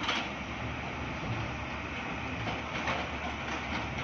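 Diesel engines of two tracked excavators, a JCB and a Tata, running steadily under digging load. A few metallic clanks come from the working buckets and arms: one at the start and a cluster about three seconds in.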